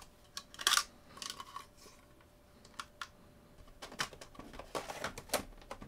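Small clicks, taps and light scraping of metal and plastic as a 2.5-inch hard drive in its metal caddy is handled and lined up with a laptop's drive bay, with a cluster of sharper clicks near the end.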